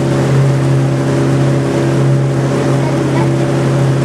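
Boat engine running steadily with a low, even hum, over the rush of water and wind.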